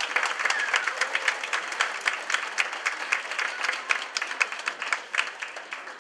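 Audience applauding, many hands clapping, the applause thinning out toward the end.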